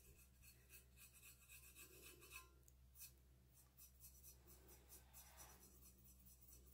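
Faint rubbing of a fingertip dabbing paint onto a stainless steel tumbler: light, short strokes, busier in the first couple of seconds, over a low steady hum.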